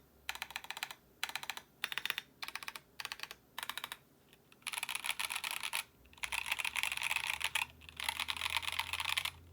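Mechanical keyboard with lubed Gazzew Boba U4T tactile switches, a polycarbonate plate, an acrylic Tofu60 case and Akko ASA keycaps, being typed on. There are short quick bursts of keystrokes for the first four seconds, then longer dense runs of fast typing.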